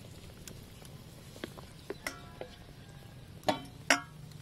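A ladle knocking against metal cookware: a few light clinks, the two loudest about three and a half and four seconds in, each ringing briefly, over a low steady hum.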